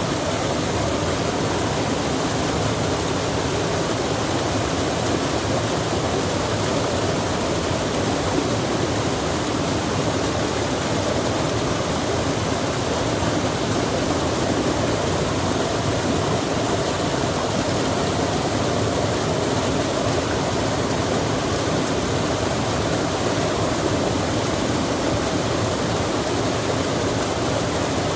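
Steady, unbroken rush of running water, like a stream or small waterfall.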